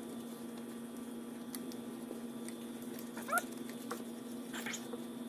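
Faint clicks and handling sounds of a rope being wound into the recoil starter of a small Johnson/Evinrude outboard, over a steady low hum. A short rising squeak comes about three seconds in and a fainter one near the end.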